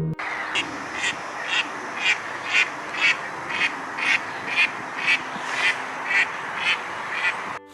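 An animal calling over and over, about twice a second at an even pace, over a steady background hiss.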